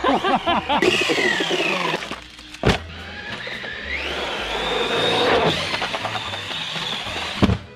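Brushless electric RC monster truck's motor whining as it is driven hard, its pitch falling then rising and holding high, with a sharp knock about two and a half seconds in.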